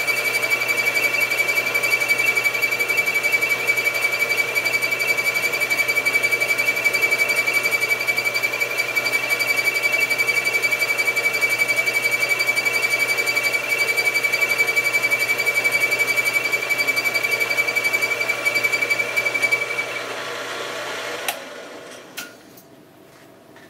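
Milling machine running with a boring head taking a cut in the lathe apron's shaft hole, a steady machine sound with a strong high whine. About twenty seconds in the whine stops and the machine winds down, followed by a couple of clicks.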